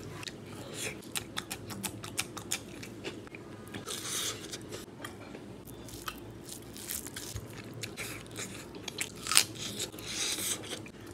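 Mouth sounds of eating spicy duck curry and khichuri rice by hand: wet chewing, lip smacks and bites into duck meat, with one sharp loud click about nine seconds in.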